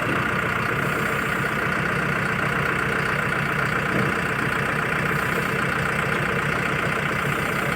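Manitou backhoe loader's diesel engine running steadily, an even low throb with no change in speed.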